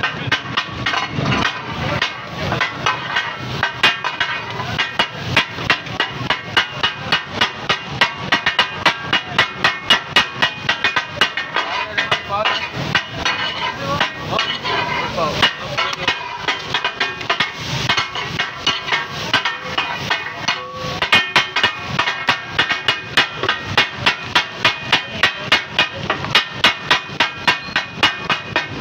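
Metal spatulas striking and scraping a large flat iron tawa griddle in a fast, rhythmic clatter of several strikes a second, the katakat chopping of fried fish. The clatter pauses briefly about twenty seconds in.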